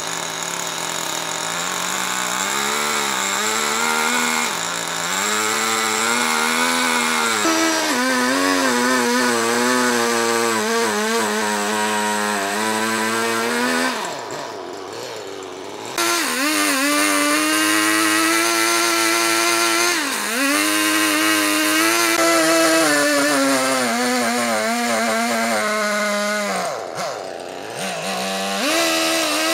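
Husqvarna two-stroke chainsaw at full throttle, cross-cutting a log into slabs. Its engine pitch sags and recovers again and again as the chain bites into the wood, with a brief quieter stretch about halfway and another near the end.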